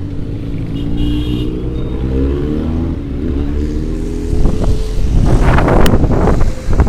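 Bus engine pulling and revving up, its pitch rising steadily, heard from on the bus roof. From about four seconds in, wind buffets the microphone loudly in gusts.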